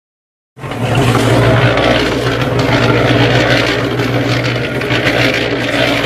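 A motor running steadily with a constant low hum, cutting in abruptly about half a second in after silence.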